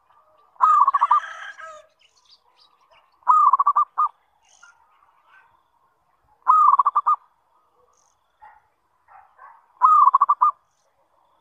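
Zebra dove (perkutut) cooing: four phrases about three seconds apart, each a quick run of short, clipped notes held at one pitch.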